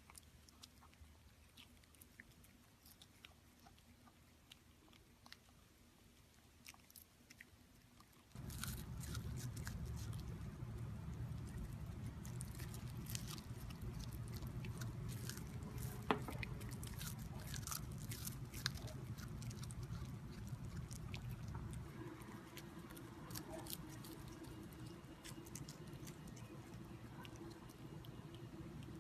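An animal chewing and crunching, with many small sharp crunches. Faint at first, it gets much louder about eight seconds in over a low hum.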